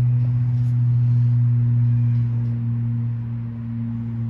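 Kittens purring close to the microphone while being stroked: a steady, deep, continuous hum.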